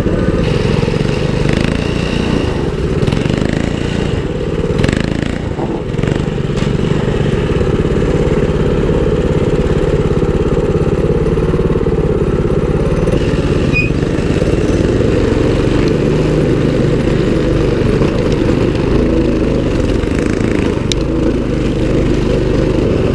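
Mini bike engine running steadily while the bike is ridden, heard close up from on board, with a brief rattle about five seconds in.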